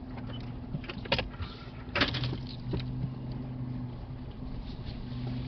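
Off-road vehicle's engine running steadily at low revs, with a few sharp knocks, the loudest about one and two seconds in.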